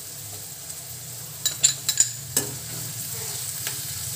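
Sliced onions and garlic frying in oil in an aluminium kadai with a steady sizzle, as green chillies and curry leaves go in and a slotted metal spatula stirs them. A few sharp knocks of the spatula against the pan about halfway through are the loudest sounds.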